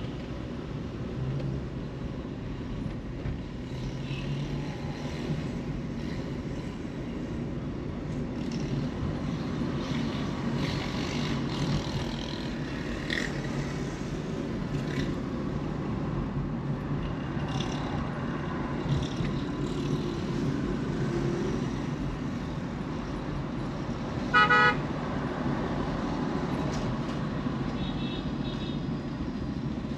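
Steady road and traffic noise from a car on the move, with a single short vehicle horn honk late on.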